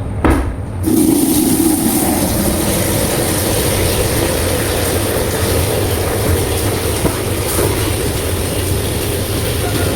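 Wet vacuum cleaner running steadily with a low hum. Just under a second in, after a brief knock, the running sound turns louder and brighter with a rush of air.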